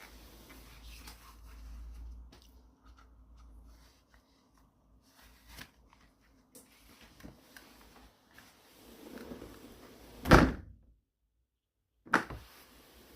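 A sliding window or door shut with a loud thunk about ten seconds in, after several seconds of faint low rumble and small knocks. A second sharp click comes near the end.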